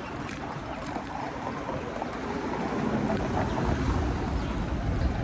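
Outdoor city street ambience: a steady wash of background noise, with a low rumble swelling over the last couple of seconds.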